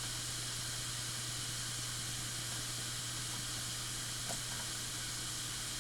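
Steady whirring hiss with a low, even hum from an old hard drive spinning with its cover off, and a faint tick about four seconds in.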